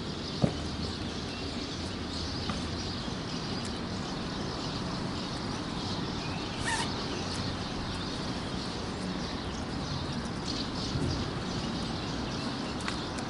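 Steady outdoor background noise with faint bird calls, one of them briefly about seven seconds in, and a single sharp knock about half a second in.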